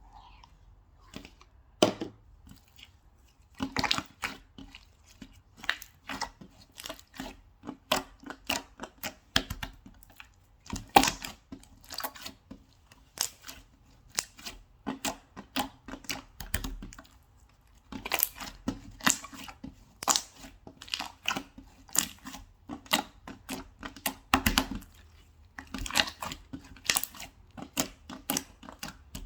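Slime being squished and stretched by hand, giving a dense, irregular run of sharp clicks and pops.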